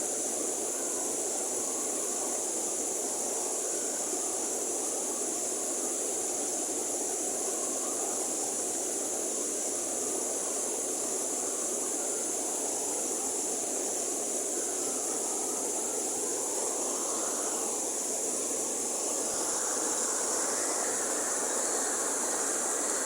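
River water rushing steadily, a continuous even noise with a steady high hiss above it.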